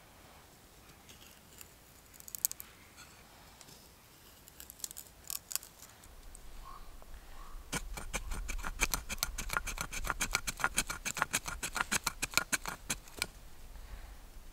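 Knife blade shaving curls down a wooden stick to make a feather stick: a few soft scrapes at first, then from about eight seconds in a quick run of short shaving strokes, around six a second, that stops a second or so before the end.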